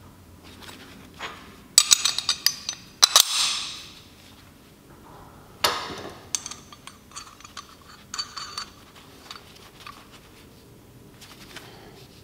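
Steel bracket parts clinking together in gloved hands as a bolt and tube spacer are fitted through a fabricated bracket: quick runs of sharp metallic clicks about two and three seconds in, a louder clank near six seconds, then lighter scattered clicks.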